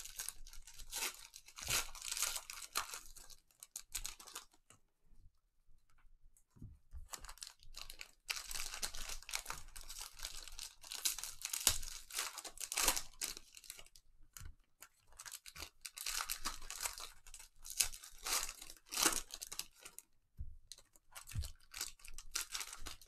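Foil wrappers of Panini Prizm football card packs being torn open and crinkled by gloved hands, in irregular crackly bursts with short pauses about five seconds and twenty seconds in.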